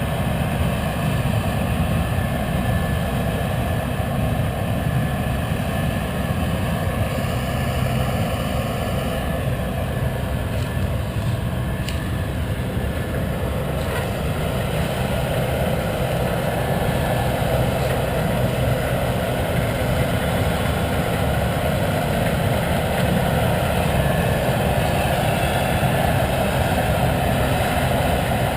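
Heavy diesel harvest machinery running steadily with a continuous low rumble, the engine noise growing a little fuller in the second half.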